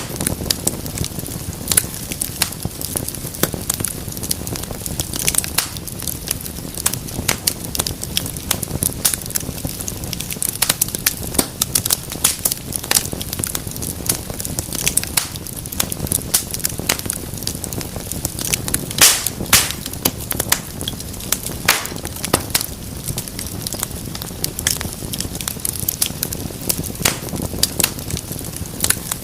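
Wood fire crackling steadily: many sharp pops and snaps over a low roar of flame, with a few louder pops about two-thirds of the way through.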